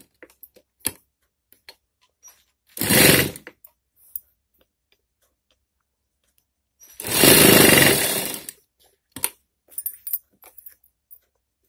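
Sewing machine stitching in two quick runs: a short one about three seconds in and a longer one of about a second and a half a few seconds later. Light clicks and taps from handling the fabric and machine come in between.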